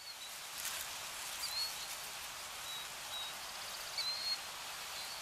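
Nature ambience: a steady soft hiss with several short, high bird chirps.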